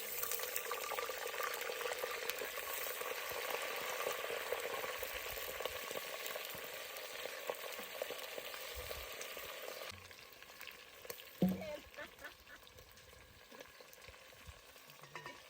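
Goat fat sizzling as it fries in a pot, being rendered into cooking oil. The sizzle drops to a quieter hiss after about ten seconds, and there is one sharp knock a little later.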